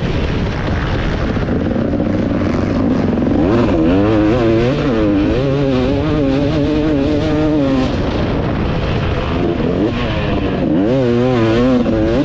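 KTM 250 SX two-stroke motocross engine with a Pro Circuit R304 shorty silencer, revving hard and falling back as the bike is ridden round the track, climbing sharply about three and a half seconds in and again near the end. Wind noise rushes over the helmet microphone throughout.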